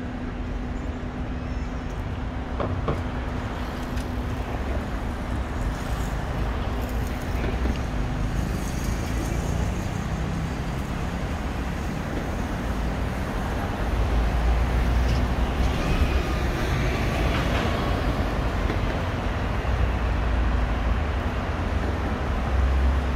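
Road traffic on a busy city street: a steady rumble of cars and buses passing that grows louder about two-thirds of the way through.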